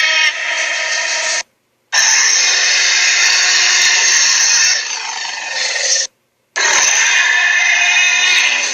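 Loud buzzing sound effect in three bursts of one to four seconds. Each burst cuts off abruptly, with short dead silences between them.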